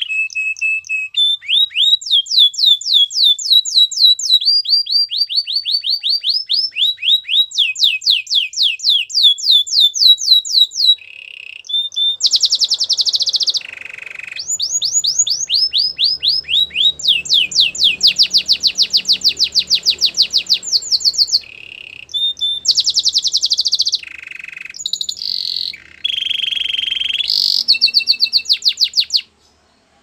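Canary singing a long, fast song: trills of rapidly repeated falling whistled notes alternating with quicker, buzzier rolls, with brief pauses between phrases. The song stops abruptly near the end.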